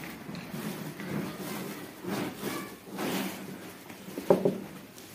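Wooden rolling pin pressing and rolling over a sheet of puffed rice and jaggery on a metal tray, with uneven crunching scrapes and a sharp knock about four seconds in, over a steady low hum.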